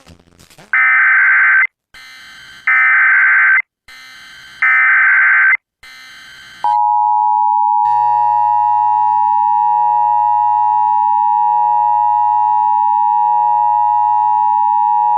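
Emergency Alert System SAME header: three shrill one-second bursts of digital data tones about a second apart, with faint static between them. About six and a half seconds in, the long steady attention tone begins and holds to the end, signalling that a tornado warning follows.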